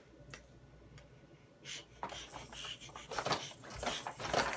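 Plastic toys on a baby's activity centre clacking and rattling as she bats at them: a couple of faint clicks at first, then a run of louder, irregular knocks from about halfway through.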